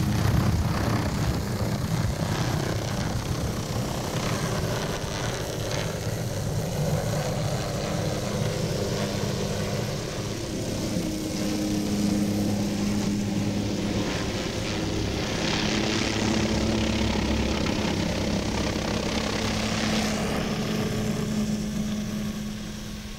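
Hughes 500C helicopter hovering overhead, its rotor and turbine engine running steadily.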